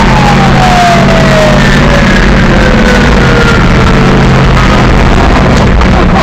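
Monster truck engine running loud under load as the truck climbs a steep dirt mound. A high whine falls slowly and steadily in pitch over the first four to five seconds.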